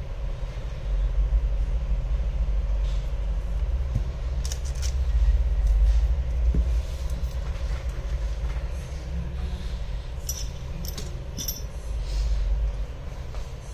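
A steady low rumble runs throughout, with a few light clicks and crinkles from hands handling a phone screen and its plastic protective film, clustered about four seconds in and again near the end.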